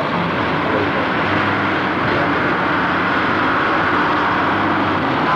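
Heavy construction machinery running: a steady, unbroken engine drone.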